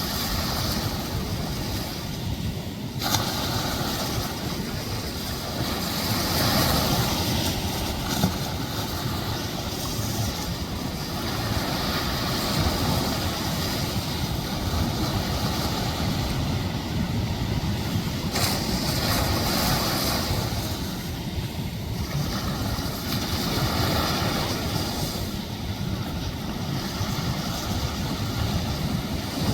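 Ocean surf breaking and washing up on the beach, swelling and easing every several seconds, over a steady low rumble of wind on the microphone.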